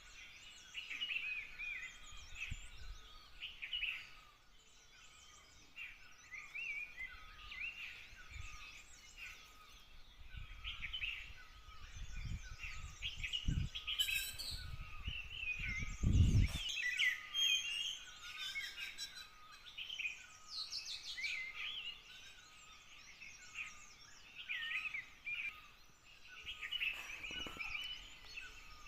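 Small birds chirping continuously, many short overlapping chirps and trills at once. A few low thumps and a sharp click come about halfway through.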